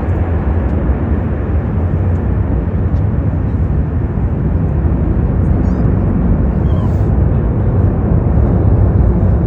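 Boeing 747 Dreamlifter's four turbofan engines at takeoff power: a loud, steady, deep jet noise that grows slightly louder toward the end.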